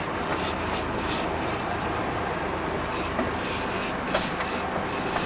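Fishing boat's engine running under way, with water rushing past the hull and hissing splashes coming in irregular bursts.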